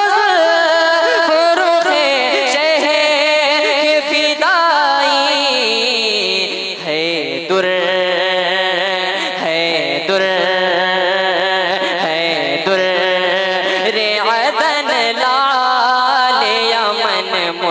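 Young male voice singing a naat through a microphone in long, wordless melismatic phrases with wavering held notes. The melody drops lower about six seconds in and climbs again near the end.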